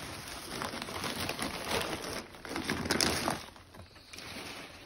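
Plastic packaging crinkling and rustling as a shipping box's plastic-wrapped insulation liner is pulled open and the frozen food inside is handled, with irregular crackles that die down after about three seconds.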